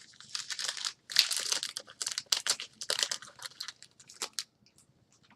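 Plastic wrapper of a trading-card pack crinkling and tearing as it is handled and opened, in irregular crackling bursts that fade to a few faint clicks near the end.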